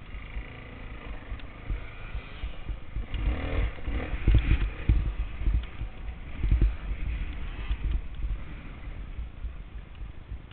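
Dirt bike engine running while riding over rough sandy ground, heard from a camera mounted on the bike, with heavy wind buffeting and uneven thuds from the bumps, loudest a few seconds in.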